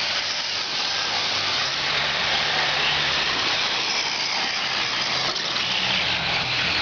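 Racing engines running during a heat race: a low engine drone that shifts in pitch under a strong, steady hiss.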